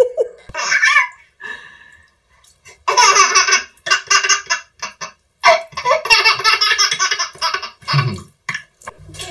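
A baby laughing hard in long runs of high-pitched belly laughs, starting about three seconds in with a short break in the middle.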